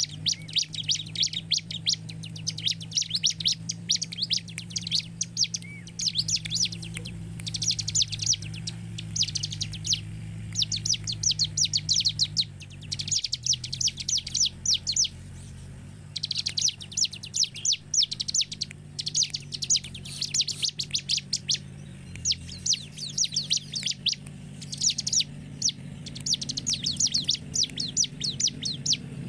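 Bar-winged prinia singing: bursts of very fast, high repeated notes, each lasting a second or two, broken by short pauses.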